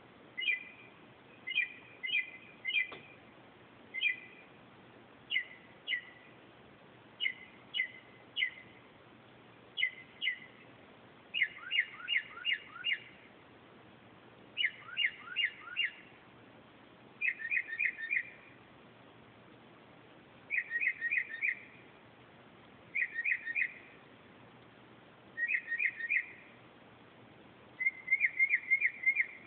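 Mockingbird singing a string of short whistled phrases, each repeated several times in a quick burst before it switches to a new one, with pauses of about a second between bursts.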